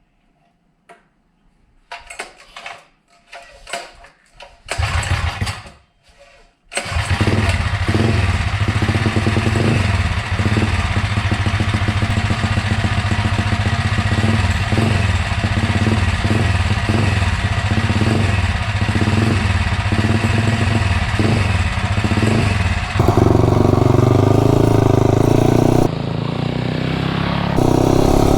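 Freshly rebuilt Tillotson 263 single-cylinder minibike engine being started: a few short attempts, then it catches about seven seconds in and runs steadily with an even pulse. About 23 seconds in, the throttle opens and the engine gets louder as the bike pulls away under load.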